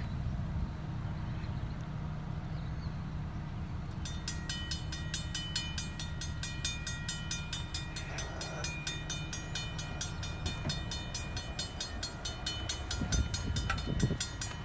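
Railroad grade-crossing warning bell starts about four seconds in and rings rapidly and evenly, about four strokes a second, signalling that a train is approaching and the gates are coming down. A steady low rumble runs underneath.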